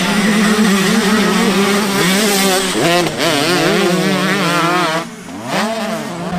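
Motocross dirt bike engines racing, their pitch rising and falling as the riders rev through a corner, with a brief drop in loudness about five seconds in.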